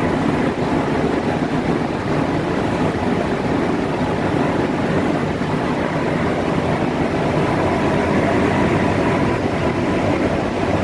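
Steady rumble inside the cab of a WAG-C3 locomotive converted from diesel to electric traction as it runs, with a faint steady hum above it.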